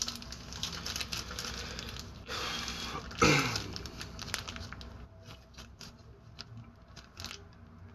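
Rustling and light clicking from hands handling parts and materials, with a louder, short sliding sound about three seconds in.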